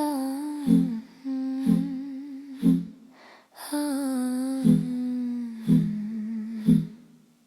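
Music: a voice humming a wavering melody over a plucked string instrument struck about once a second, with a short break in the humming midway.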